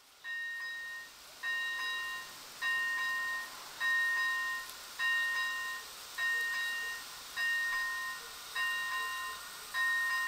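Electronic level-crossing warning bell ringing, one sharp-starting, fading tone about every 1.2 seconds, warning of an approaching train.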